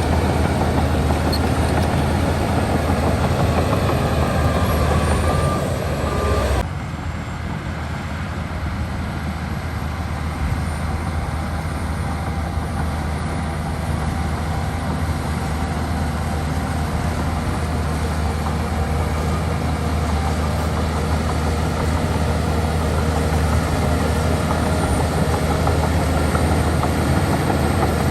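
Heavy diesel engine of an earthmoving machine running steadily, with a sudden drop in level about six and a half seconds in.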